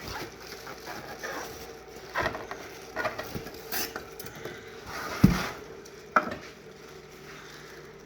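Unpacking noises as the band saw and its packing are taken out of the box: rustling and scattered knocks, with a heavy thump about five seconds in and a sharper knock a second later.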